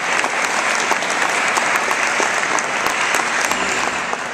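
Audience applauding, a dense patter of many hands clapping, beginning to taper off near the end.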